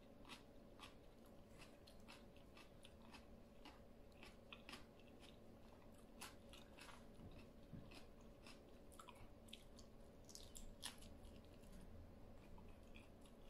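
A person chewing mouthfuls of spicy Thai salad with shrimp and cucumber, eaten by hand: faint, irregular small clicks and crunches of chewing.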